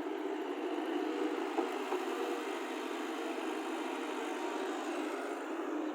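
Small motors of radio-controlled construction models running steadily, with a few faint clicks.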